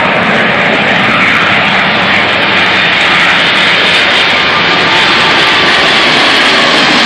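Jet noise from a British Airways Boeing 747-400's four Rolls-Royce RB211 turbofans as the airliner passes low overhead on final approach, gear down. A loud, steady rushing sound that builds slightly at the start, with a thin high whine from the engines coming in near the end.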